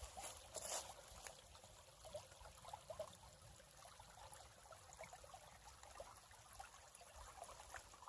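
Faint trickling of a small woodland creek, with scattered soft ticks and rustles.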